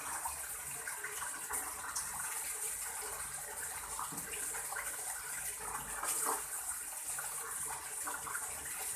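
Running water splashing steadily, with small scattered splashes and knocks over it.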